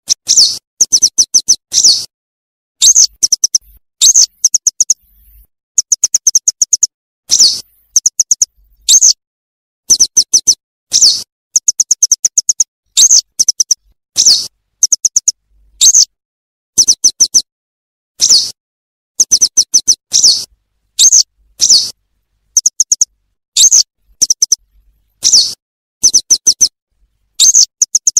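Recorded yellow wagtail calls looped as a bird-trapping lure. Groups of five to eight quick high notes alternate with single longer calls that slur in pitch, with short gaps between, repeating evenly throughout.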